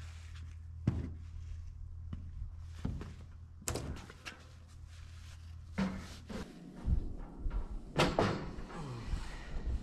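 A long wooden framing board being handled and bumped against a steel scaffold: a handful of separate hollow knocks and thunks, the loudest near the end. A low steady hum underneath stops about two-thirds of the way through.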